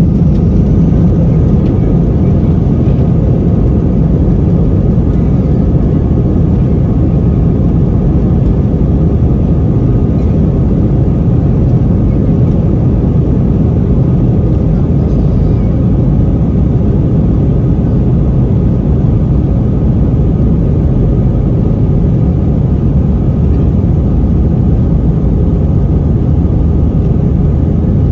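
Airbus A320 heard from inside the cabin as it moves along a wet runway: a loud, steady rumble of the engines and airframe.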